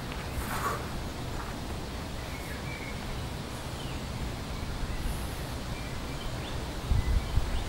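Outdoor ambience: steady wind noise on the microphone, with a brief rustle about half a second in, a few faint bird chirps, and stronger low gusts near the end.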